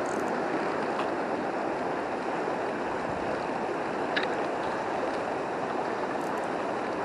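Steady rush of flowing river water, with a couple of faint ticks.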